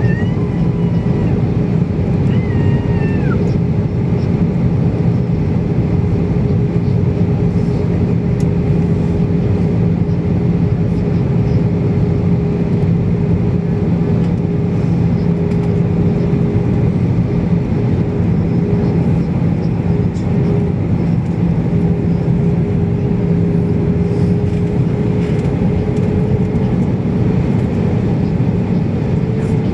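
Airbus airliner's jet engines heard from inside the cabin at a window seat over the wing: a loud, steady drone with two low humming tones running through it.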